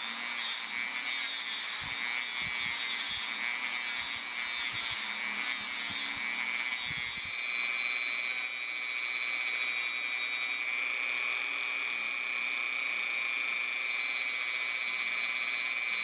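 Handheld rotary tool running at high speed with a plastic abrasive bristle wheel pressed against a steel knife blade. Its steady high whine wavers in pitch for the first several seconds, then holds steadier.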